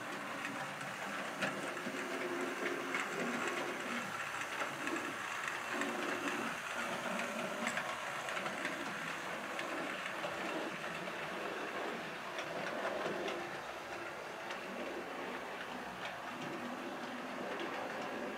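Model train running along the track: a steady rolling rumble of motor and wheels with scattered light clicks.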